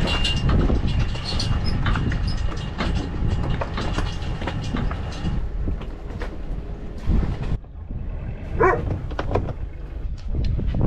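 Steady low rumbling noise with scattered knocks and clatter from moving about a sailboat's cockpit. About nine seconds in, a dog gives a short whine.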